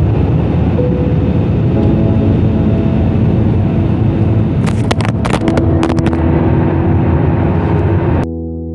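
Airliner cabin noise: the steady roar of the jet engines and rushing air heard from a window seat, with a cluster of sharp clicks a little past the middle. Just before the end the roar cuts off abruptly and soft music takes over.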